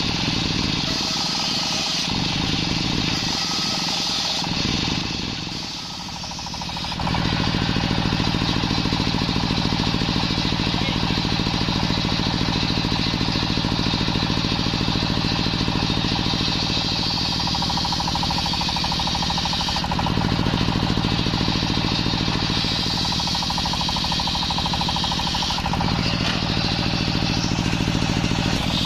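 Large belt-driven circular saw bench ripping waru (sea hibiscus) wood into boards: the steady drone of the drive engine under the hiss and whine of the blade in the cut. It dips briefly, then runs louder and steadier from about seven seconds in.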